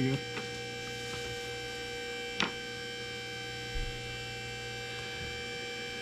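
Steady electrical hum made of several steady tones, broken by one sharp click about two and a half seconds in and a faint knock a little later.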